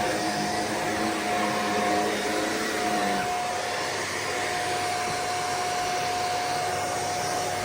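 Corded Shark vacuum cleaner running at a steady pitch: a high motor whine over a rushing of air, with a lower hum that fades out about three seconds in.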